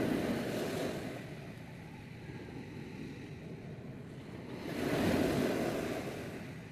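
Sea waves washing on the shore, the surf swelling at the start and again about five seconds in.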